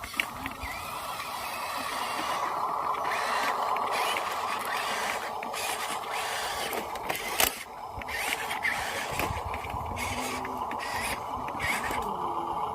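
Small electric motors and plastic gearboxes of a remote-control construction model whirring steadily, with a sharp click about seven seconds in.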